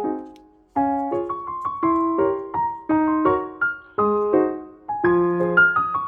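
Background music: a light piano melody of single struck notes that fade away, with a short pause just under a second in.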